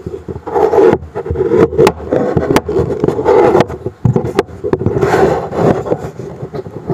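Wooden joint pieces with comb-cut ends being handled on a wooden tabletop: wood scraping and rubbing on wood, with scattered light knocks.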